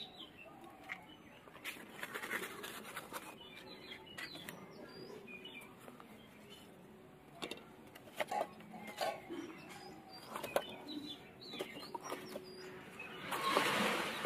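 Lighting a clay mud stove (chulha): scattered light clicks and rustles of newspaper and kindling being handled, with faint bird chirps in the background. Near the end, a louder rustling noise lasting about a second as sticks of split wood are pushed in onto the burning paper.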